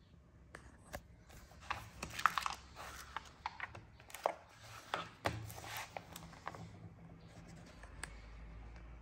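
Paper catalogue pages being handled and turned: a run of rustling with sharp crackles and clicks, dying away about seven seconds in.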